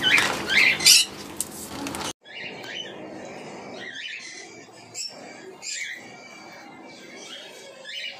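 Birds chirping and squawking in short high calls over a steady low hum. The hum and the louder calls cut off abruptly about two seconds in, and fainter chirps go on after.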